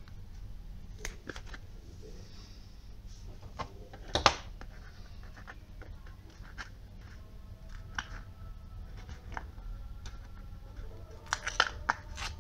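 Hands handling a clear plastic box and peeling the backing paper off double-sided tape: scattered small clicks and rustles, with a sharper knock about four seconds in and a quick run of clicks near the end.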